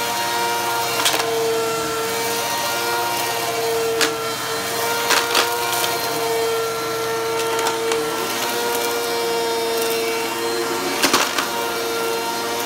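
Upright vacuum cleaner running steadily over a shag rug, its motor holding an even hum. Sharp clicks and rattles stand out a few times, loudest about eleven seconds in, as bits of debris are sucked up.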